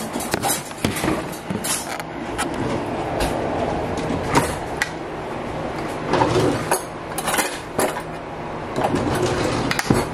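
Kitchen clatter: irregular clinks and knocks of utensils against pots and dishes, over a steady low hum.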